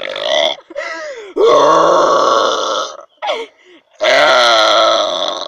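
A woman belching loudly several times in a row: two long, drawn-out belches of about a second and a half each, with shorter belches between them.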